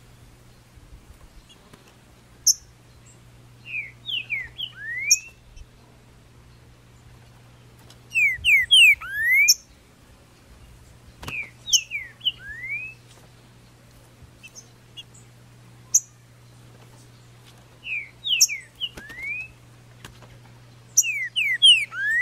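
Green-winged saltator (trinca-ferro) singing: five short phrases of clear, rising slurred whistles, a few seconds apart. A faint steady low hum lies underneath.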